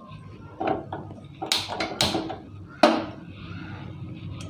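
Several sharp clinks and knocks of kitchen vessels and utensils being handled and set down, clustered in the first three seconds.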